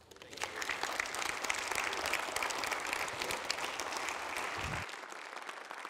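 Audience applauding, many hands clapping at once. The applause swells during the first second and drops in level near the end.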